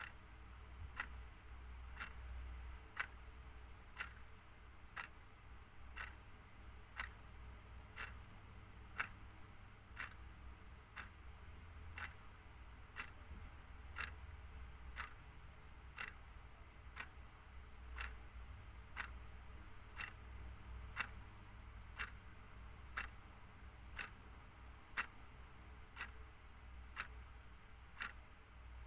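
Clock ticking steadily: short, evenly spaced ticks over a faint low hum.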